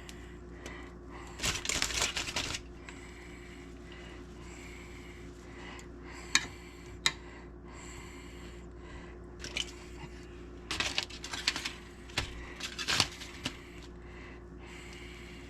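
Scattered clicks, taps and rustles of hands and utensils handling dough balls over a bowl and pan, two sharp clicks near the middle, over a steady low hum.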